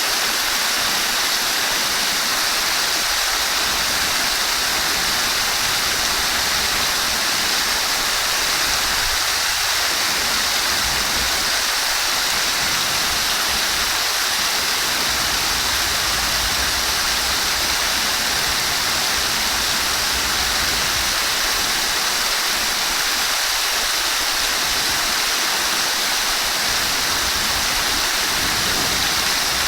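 Flowing water rushing steadily and evenly, a continuous hiss-like splash with no breaks.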